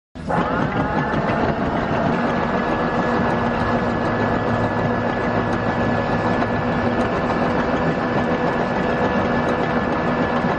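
Electric anchor windlass motor starting and running steadily as it pays out anchor chain. It rises in pitch for about the first second, then holds one even pitch.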